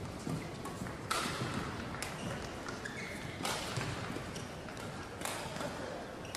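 Badminton rally: rackets striking the shuttlecock four times, one to two seconds apart, over a steady arena background hum.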